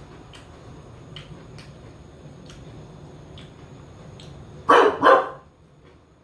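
A dog barks twice in quick succession near the end, two short loud barks over a faint background with light ticking.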